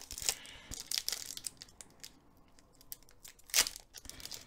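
Crinkling and tearing of a foil booster pack wrapper (Flesh and Blood Arcane Rising) being pulled open by hand, a run of irregular sharp crackles with the loudest about three and a half seconds in.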